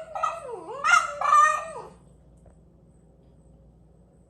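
French bulldogs howling: high, wavering cries that dip in pitch and rise again, stopping about halfway through.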